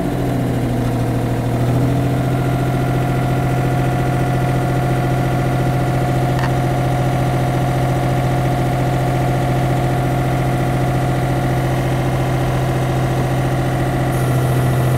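Small excavator's diesel engine idling steadily, its note stepping up slightly about two seconds in. A single sharp click comes about six and a half seconds in, and a high hiss joins near the end as the joystick is taken in hand.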